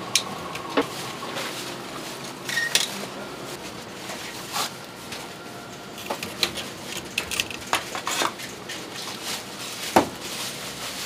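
Steel tongs clinking and scraping against charcoal and the steel firebox opening of a barrel chicken roaster, in scattered sharp metallic clanks. About ten seconds in comes the loudest clank, as the roaster's metal hatch is latched shut.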